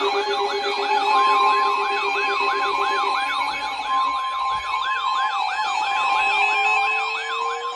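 Electronic emergency-alert siren tones overlapping: a yelping tone that sweeps up and down about three times a second, with a steady beep-like tone cutting in and out over it and a low tone slowly rising near the end. They herald an incoming flash flood warning.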